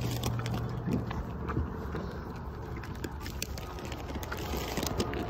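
Goats chewing mandarin oranges close up: irregular wet smacks and clicks.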